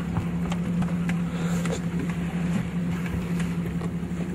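Boat engine running with a steady low hum over the wash of choppy sea water, with a few short splashes or knocks.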